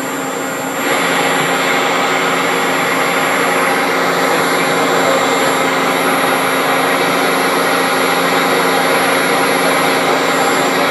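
1995 Cincinnati Milacron Avenger 250MT CNC turning center running, a steady machine whine and hum with several steady tones. It grows louder and brighter about a second in, then holds steady.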